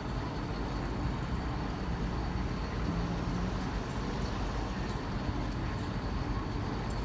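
Steady outdoor traffic and engine noise, a continuous low hum with no distinct events.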